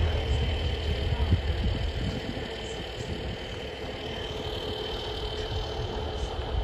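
Class 150 Sprinter diesel multiple unit's underfloor diesel engines rumbling low, the rumble fading over the first two seconds or so. A steady high whine runs throughout.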